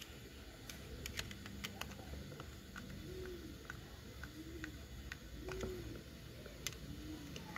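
A dove cooing faintly in the background: four short rising-and-falling coos from about three seconds in, roughly one every second and a half. Light clicks and taps come with them, mostly in the first two seconds.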